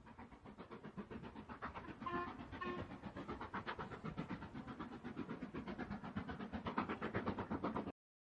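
Flying Scotsman steam locomotive and train running with a fast, even rhythmic beat, giving two short whistle toots about two seconds in; the sound cuts off suddenly near the end.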